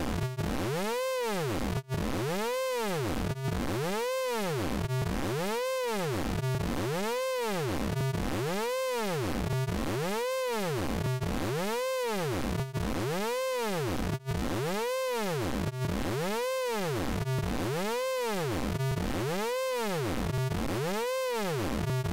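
Synthesized vocoder effect from the Orange Vocoder plugin: a buzzy tone with many overtones that sweeps up and back down in pitch, looping steadily about once every 0.8 seconds.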